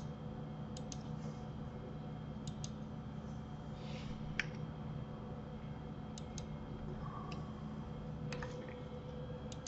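Scattered clicks of a computer mouse and keyboard, about a dozen, several coming in quick pairs, over a steady low hum of room and microphone noise.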